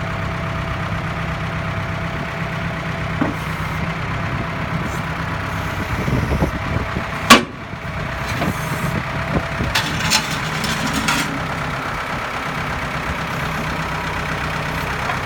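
Tractor engine running steadily as a Twose rear-mounted backhoe works. Scattered metallic knocks and clanks come from the digger in the middle part, the loudest a single sharp bang a little past halfway.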